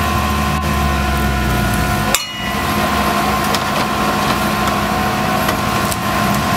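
Off-road 4x4's engine running steadily, with one sharp knock about two seconds in and scattered light clicks.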